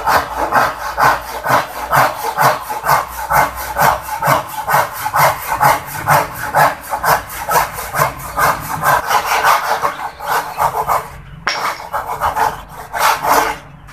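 Hasston Prohex 20-inch hand saw cutting through a wooden board in steady back-and-forth strokes, about two a second. The strokes stop briefly a little after ten seconds in, then a few quicker strokes follow near the end.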